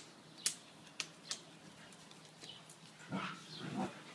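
A dog vocalizes briefly about three seconds in, after a few sharp clicks in the first half.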